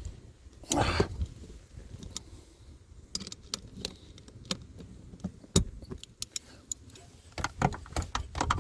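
A cordless impact driver runs briefly about a second in, undoing a dashboard bracket bolt, followed by irregular clicks and rattles of tools and metal and plastic parts being handled.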